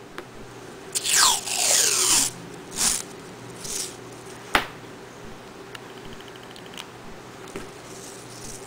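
Masking tape pulled off its roll: one long rip about a second in, then two shorter rips and a single sharp click a little after the middle.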